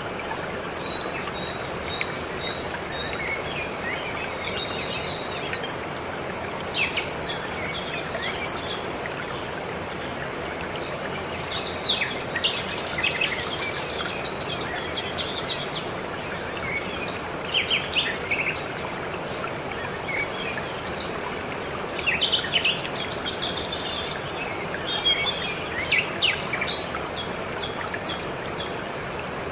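Waterfall rushing steadily, with songbirds chirping over it in short clusters of quick high calls.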